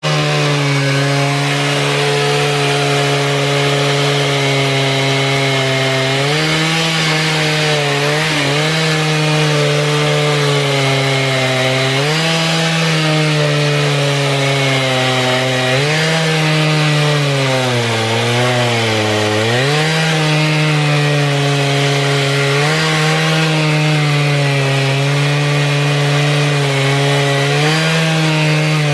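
Two-stroke chainsaw in a portable chainsaw mill, running hard as it rips a log lengthwise. Its pitch sags and recovers a few times as the chain loads up in the cut, most deeply about two-thirds of the way through.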